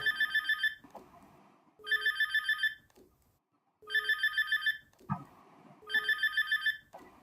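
Old Energizer mobile phone ringtone: a high electronic trill of quick beeps, about eight to a burst, repeating four times about two seconds apart. Pretty repetitive.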